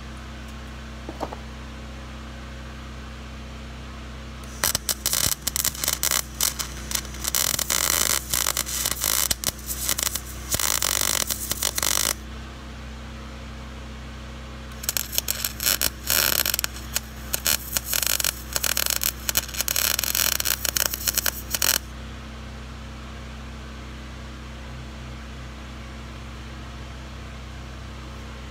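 Lincoln 140 MIG welder arc crackling as a round steel flange is welded to the shipping container's steel roof, in two long runs of about seven seconds each with a short pause between.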